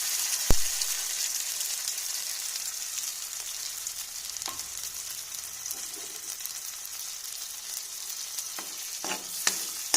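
Fresh ginger paste sizzling in hot desi ghee in a heavy-bottomed kadhai, a steady hiss that slowly dies down as the paste's water cooks off. There is a sharp knock about half a second in, the loudest sound, and a few spoon taps and scrapes against the pan near the end.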